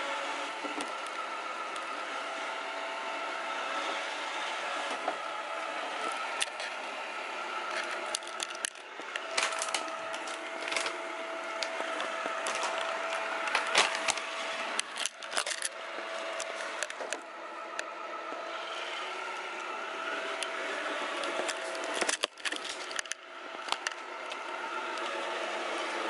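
iClebo robot vacuum cleaner running: a steady whir with a faint held whine, broken by scattered clicks and knocks, mostly in the middle and again near the end.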